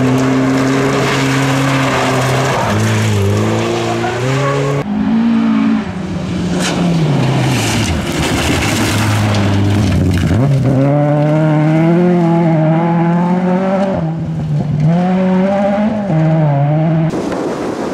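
Rally car engines at high revs on a gravel stage, one car after another, with gear changes and the hiss of sprayed gravel. The engine pitch climbs and drops as the cars shift and pass, and the sound switches abruptly from one car to the next several times.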